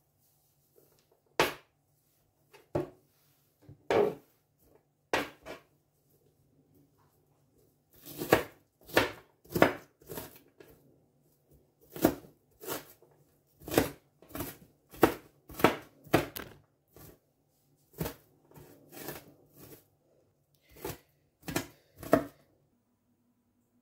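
Kitchen knife chopping red onion on a plastic cutting board: separate knocks about a second apart at first, then a quicker, uneven run of knocks from about a third of the way in, stopping shortly before the end.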